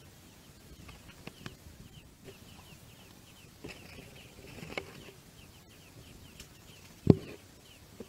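Nestlings in the nest begging with a rapid string of thin, high cheeps. Handling knocks and bumps on the phone break in now and then, the loudest a thump near the end.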